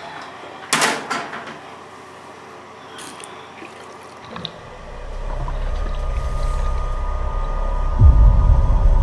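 A sharp bang about a second in, then a low rumbling drone that swells in from about halfway, with a steady high tone over it and a heavy boom near the end: horror-film sound design.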